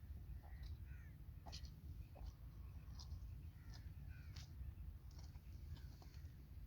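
Birds calling: a scatter of short chirps and small hooked notes, faint, over a steady low rumble.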